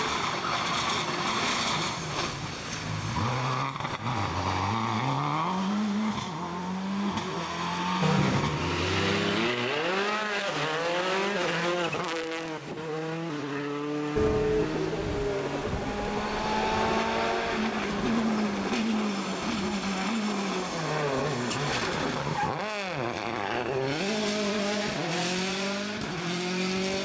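Rally car engines revving hard, their pitch climbing and dropping again and again with gear changes, braking and acceleration as the cars run through the stage. There is a quick fall in pitch as one car passes about two-thirds of the way in, and some tyre squeal.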